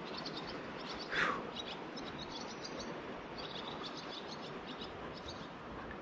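Small birds chirping in quick repeated bursts over the steady rush of flowing river water. About a second in, one loud, sharp call sweeps quickly downward in pitch.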